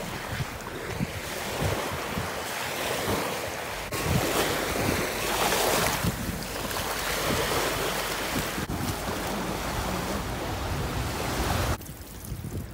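Ocean surf washing ashore, with wind buffeting the microphone. The sound changes abruptly a few times and turns quieter near the end.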